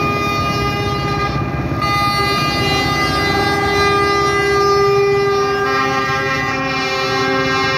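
Several semi-truck air horns blaring together in a long, sustained chord, the mix of pitches shifting a couple of times as horns join or drop out.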